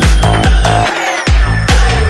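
Electronic dance music with a heavy kick drum a little over twice a second. The kick and bass drop out briefly near the middle under a falling sweep, then come back.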